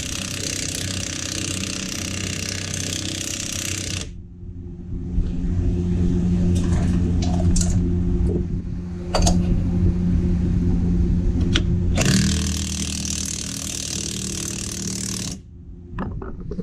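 Impact wrench hammering on the forcing screw of a bearing press tool, pushing the old press-in front wheel bearing out of the steering knuckle. The noise changes character for several seconds in the middle, picks up again, and cuts off a little before the end.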